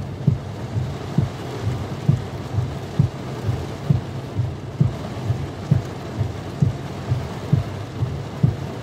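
Heavy rain drumming on a car with the windscreen wipers running, a short low thump about once a second as the blades sweep, over a steady low engine hum.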